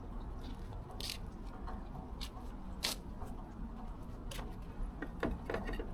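A few short, sharp clicks and handling noises, the loudest about one second and about three seconds in, over a steady low background rumble.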